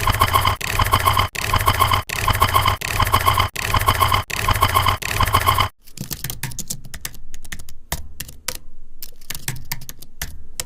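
Edited sound effects: a loud, dense clip repeated about every three quarters of a second, then, about six seconds in, a cut to a quieter run of irregular sharp clicks.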